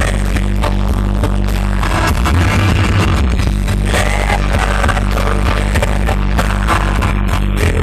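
Live rock concert music: a full band playing loud, with heavy, steady bass.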